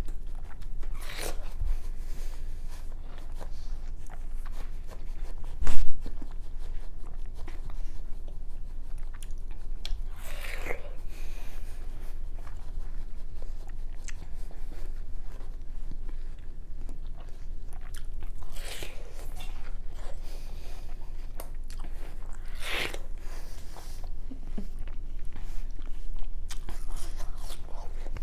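A boy biting and chewing watermelon, with a few louder bites spaced several seconds apart. One sharp knock about six seconds in is the loudest sound.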